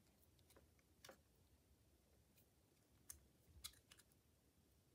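Near silence with a few faint, short clicks as a digital caliper is slid and closed onto a wristwatch case to measure it lug to lug.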